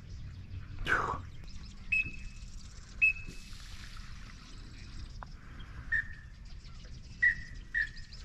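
Bird calls: a loud falling call about a second in, then short single whistled chirps, two higher ones around two and three seconds in and three lower ones near the end, over a low steady rumble of breeze on the microphone.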